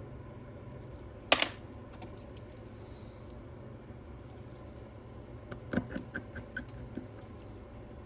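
Light clicks and taps of small parts and tools being worked on the inside of an iPad Pro as brackets and flex connectors are pried loose. One sharp click-scrape comes about a second in, and a scatter of light clicks follows near the middle, over a low steady hum.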